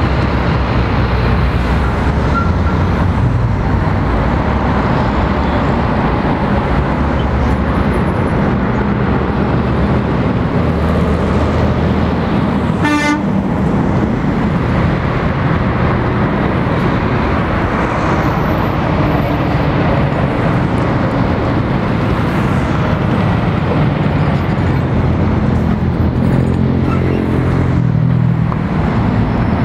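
Steady roadside traffic on a busy multi-lane road: lorries, buses and cars passing with engine and tyre noise. A short vehicle horn toot comes about thirteen seconds in, and a heavy truck's engine grows louder near the end as it passes close.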